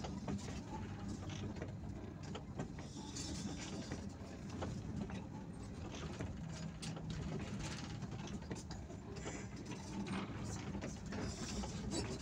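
Bus engine running steadily at low speed, heard from the driver's cab, with frequent small rattles and clicks from the cabin.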